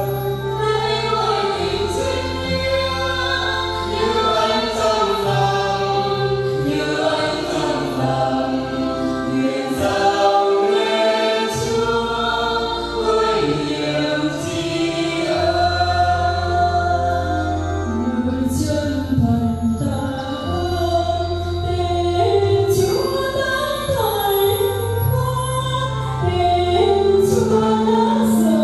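Church choir singing a hymn over sustained instrumental bass notes that change every few seconds.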